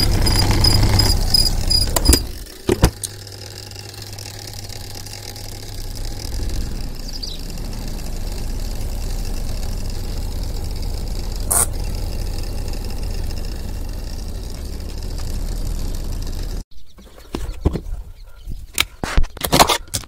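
Godrej semi-automatic washing machine's motor running with a steady hum, then cutting off abruptly, followed by a few clicks and knocks near the end.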